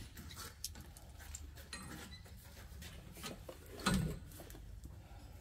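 Faint clicks and light metal taps of steel U-bolts being handled and fitted around a vehicle's front axle, with one louder brief sound about four seconds in.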